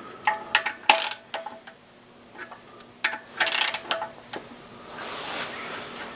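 Ratchet and metal tools clicking and clinking in two quick clusters as nuts are run down onto the intake camshaft bearing cap studs, with a soft scraping hiss near the end.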